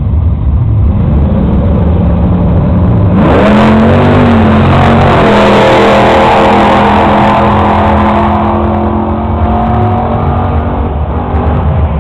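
Drag-racing car's engine rumbling at the line, then about three seconds in it launches with a sudden loud burst, the engine note rising as it pulls away. It runs hard for several seconds before fading back to a low rumble near the end.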